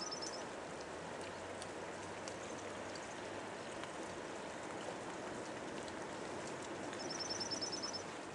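River water flowing steadily with an even rushing sound. Near the end a bird gives a quick, high trill of about ten notes.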